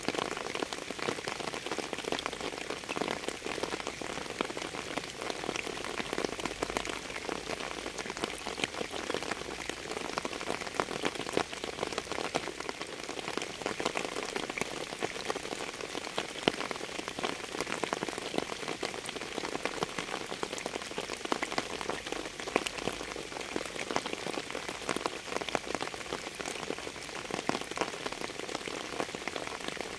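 Steady rain falling on a surface: an even hiss with a dense scatter of individual drop hits.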